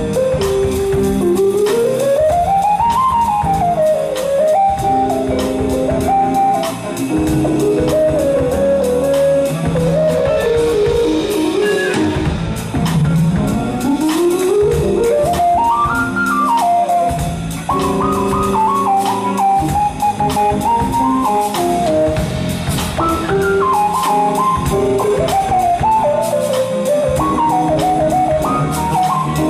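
Live jazz band playing: a saxophone leads with a melodic line of quick runs that climb and fall, over drum kit, bass and guitar.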